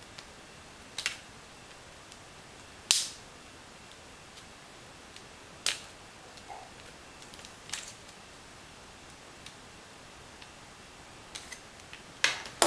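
A small flathead screwdriver prying open the retaining tabs of a GPS unit's LCD backlight assembly, making sharp, separate clicks and snaps. The loudest snap comes about three seconds in, and a quick pair comes near the end.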